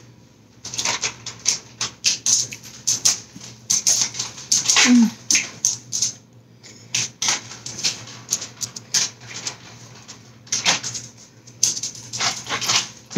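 Close-up wet chewing and lip-smacking of a mouthful of chili cheese tater tots: a run of quick, irregular smacks and clicks, with a short falling hum of enjoyment about five seconds in.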